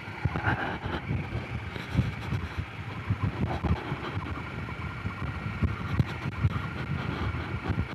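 Honda CRF250 Rally's single-cylinder four-stroke engine running while riding a gravel track, mixed with wind on the microphone and irregular low thumps throughout.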